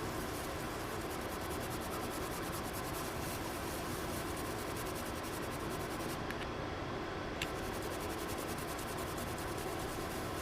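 Steady, even background noise with a faint hum, and a single faint click about seven seconds in.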